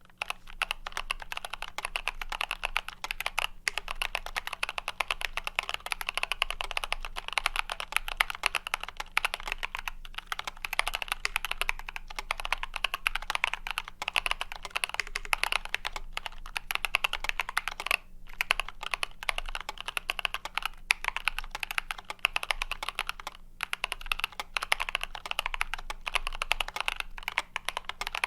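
Fast continuous typing on a YMDK Wings mechanical keyboard with Boba U4T tactile switches and NicePBT keycaps, foam-dampened and tape-modded, with only a few brief pauses.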